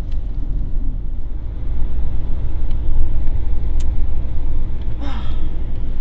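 Steady low rumble of a moving car heard from inside the cabin, engine and road noise together. A brief vocal sound with a falling pitch comes about five seconds in.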